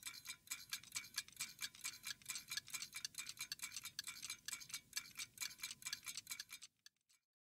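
Faint clockwork ticking sound effect: rapid, evenly spaced ticks that stop abruptly near the end.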